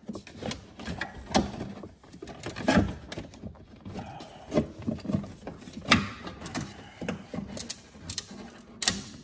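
Irregular clicks, knocks and light rattles of engine parts and hoses being handled and fitted back into place while the intake is reassembled.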